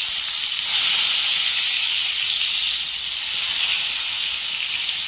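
Spiced brinjal (eggplant) slices sizzling in hot oil in a non-stick kadai: a steady frying hiss that swells about a second in as another slice is laid into the oil.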